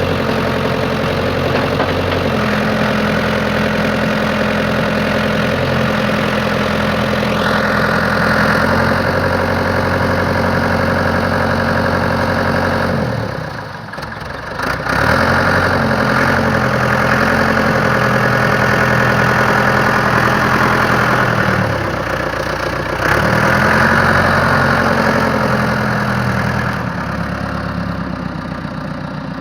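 Ford 655A backhoe's engine running steadily, with a higher hiss joining about seven seconds in. The engine note dips and picks back up twice, about 13 seconds in and again near 22 seconds.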